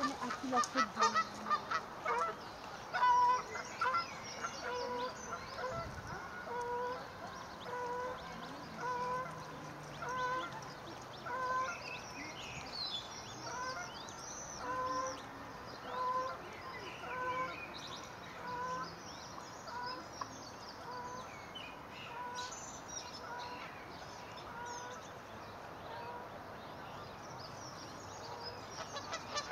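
A swan giving a steady series of short, soft honking calls, a little faster than one a second, louder in the first few seconds. Higher thin peeps of newly hatched cygnets come over it in the middle and again later.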